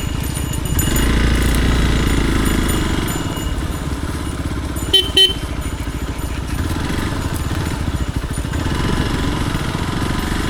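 Motorcycle engine running at low trail speed with steady exhaust pulses. It gets louder for a couple of seconds about a second in, and there are two short loud blips about five seconds in.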